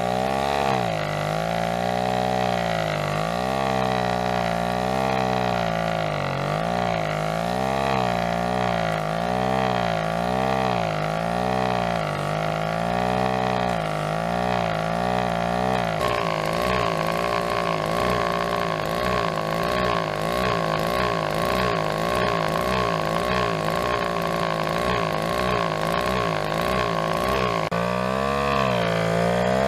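Small two-stroke engine running on hydrogen gas, its speed surging up and down unevenly. About halfway through the sound switches abruptly to a steadier, faster run with a high whine over it, then near the end it goes back to surging.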